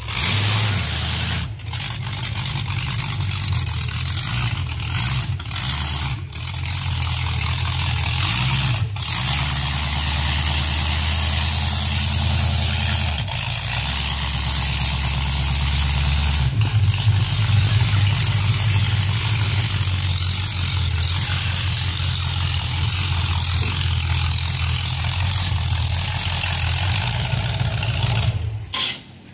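Demolition derby car's engine running as the car drives slowly across grass, its pitch stepping up and down several times with the throttle.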